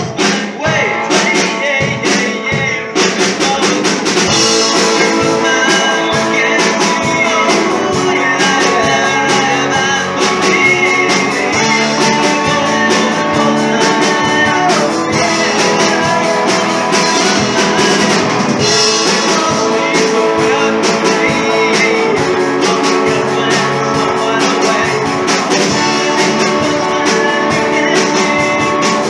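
Rock and roll band playing with electric guitar, drum kit and singing. It opens with a few separate accented hits, and the full band comes in about three seconds in.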